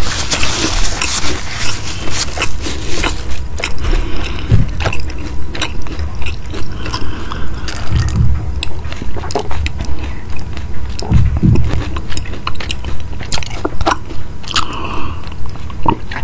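Close-miked chewing of crispy chicken cutlets, a steady rhythm of about two to three chews a second, with a few deep gulps of water in the middle of it.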